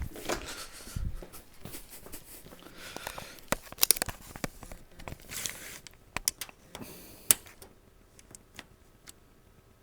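Handling noise: scattered clicks, taps and brief rustling and scraping as hands work on a PC case, thinning out about seven seconds in.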